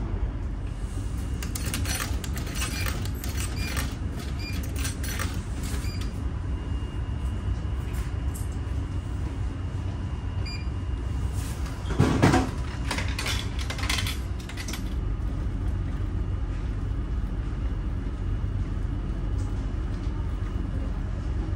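Steady low rumble of a ferry's engines. Over it, coins click into a cup-noodle vending machine for a few seconds near the start, then the machine gives one loud clunk about halfway through as it dispenses the cup, followed by a few small clicks.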